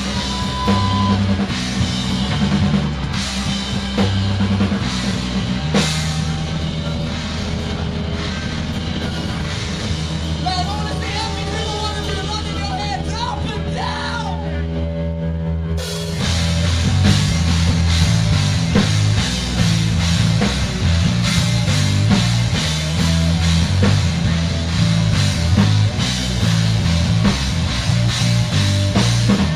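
Live rock band playing electric guitar and drum kit, amplified in a small club. About halfway through, the band comes in louder and fuller.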